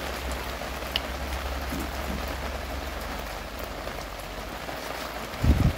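A steady, even hiss like falling rain, with a faint click about a second in and a low thump near the end.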